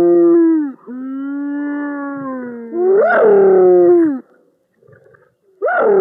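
An animal's long pitched calls, three or four in a row. Each jumps up in pitch at its start, then falls and holds before dropping off; one lower, steadier call comes in between.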